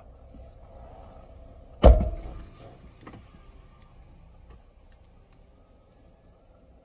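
Motorized roll-up entrance door of an in-bay automatic car wash opening, a steady motor whir with one loud clunk about two seconds in.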